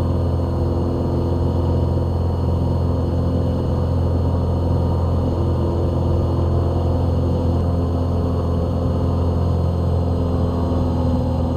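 Steady drone of a Cessna 182 Skylane's piston engine and propeller heard from inside the cockpit during the climb after takeoff, an even low hum that does not change.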